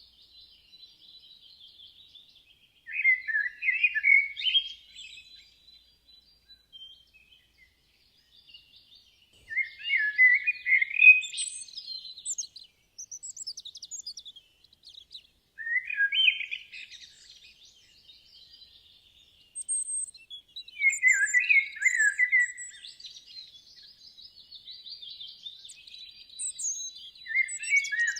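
Songbirds singing: a louder song phrase about two seconds long comes again roughly every five to six seconds, over fainter, steady chirping from other birds.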